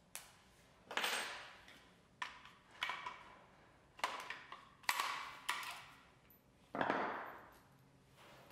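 Clicks and clunks of plastic and metal parts from a Festool Domino DF 500 joiner as the motor unit is fitted back into its fence housing. There are about eight sharp knocks, roughly a second apart, some followed by a brief scraping rattle.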